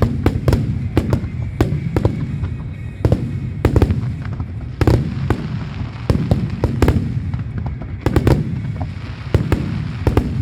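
Aerial fireworks bursting in quick, irregular succession: many sharp bangs, some close together, over a continuous low rumble from the barrage.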